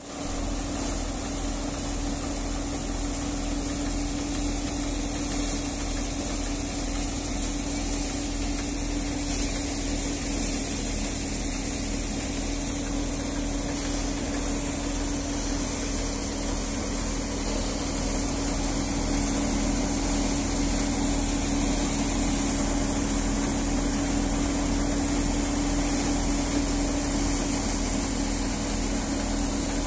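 Tractor-driven multi-fan paddy thresher running steadily: a constant machine drone with a steady hum and a hiss of threshed grain and air from the fans, growing a little louder past halfway.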